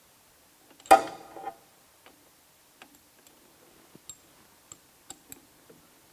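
Small steel spanners working on the drill-mill head's drawbar. About a second in there is one sharp metal clank with a short ring, followed by scattered light clicks and ticks as the drawbar is tightened to seat the drill chuck.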